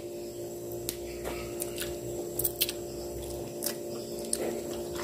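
Metal fork clinking and scraping against a steel wok as noodles are turned, in scattered light clicks over a steady low hum.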